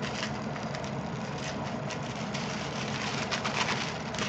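Paper rustling and crinkling in bursts as a wrapped package is handled and opened, over a steady low background hum.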